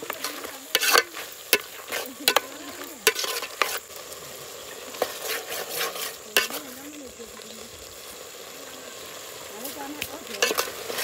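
A spoon stirring food that is frying in a pot: sharp clacks and scrapes of the spoon against the pot over the first few seconds, then mostly a steady sizzle, with a few more clacks near the end.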